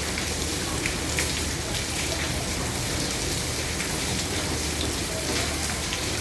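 Heavy downpour on a roof: a steady, dense hiss of rain scattered with sharp little drop splashes.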